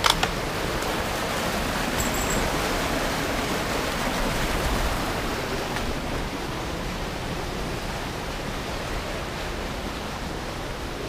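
A woodland stream rushing over rocks, a steady wash of water noise that eases slightly in the second half.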